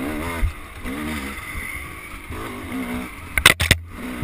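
Dirt bike engine revving up and easing off several times while riding a trail, with wind on the microphone. A few sharp knocks come about three and a half seconds in.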